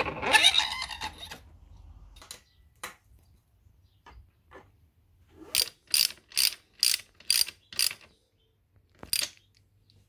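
Socket ratchet wrench clicking in six quick, evenly spaced strokes about two a second, then once more, as a bolt on a dirt bike's rear suspension is worked. A short louder clatter comes at the very start.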